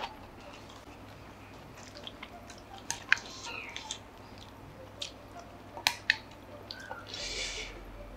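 Eating sounds: scattered sharp clicks of a metal spoon against a ceramic bowl of vegetable-and-bean curry, with softer wet mouth and hand-mixing sounds, and a short hiss near the end.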